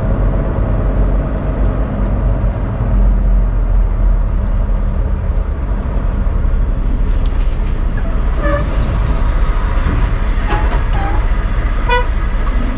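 Semi-truck's diesel engine running with a steady low rumble, heard from inside the cab as the truck creeps forward.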